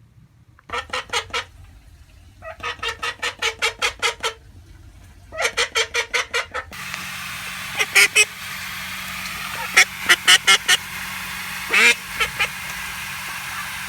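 Female call duck quacking in rapid runs of loud quacks, three runs in the first half and more short runs later. About halfway a steady hiss comes in under the quacks.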